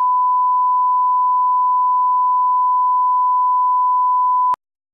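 Steady 1 kHz line-up test tone accompanying SMPTE colour bars, a pure single pitch used to set audio levels; it cuts off suddenly about four and a half seconds in.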